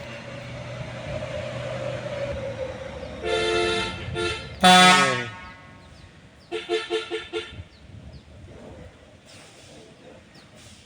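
Vehicle horns honking: two short toots about three seconds in, a loud blast that falls in pitch around five seconds, then a quick run of short toots. A vehicle engine runs steadily under the first few seconds.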